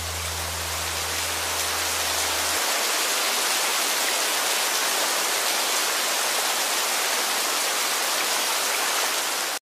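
Steady rain, an even hiss of falling rain that grows a little louder over the first couple of seconds and cuts off suddenly near the end.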